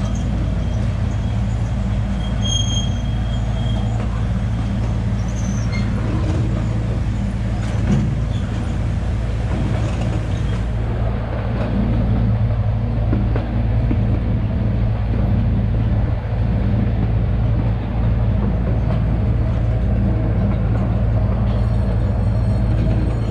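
Small open-car zoo train running along its track, heard from aboard: a steady low drone of the train in motion.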